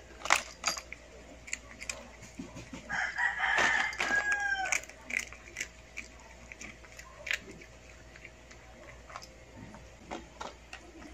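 A kitten crunching ridged potato chips: a run of short, sharp crunches. About three seconds in, a louder pitched, drawn-out call lasting about two seconds rises over the crunching.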